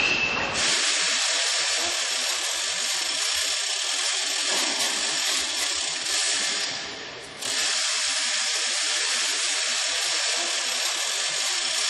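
A power tool running with a steady high-pitched hiss. It breaks off for a moment about seven seconds in, then starts again.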